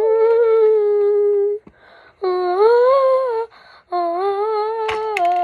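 A girl humming three long held notes, the middle one rising and then falling in pitch. A few short clicks come near the end.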